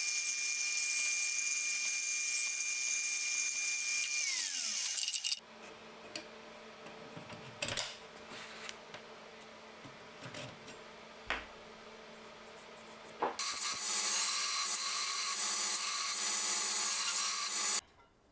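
Electric grinder running with a steady whine and hiss of abrasive on metal, then spinning down about four seconds in. A few seconds of light knocks and handling clicks follow, then the grinding hiss starts again and cuts off suddenly near the end.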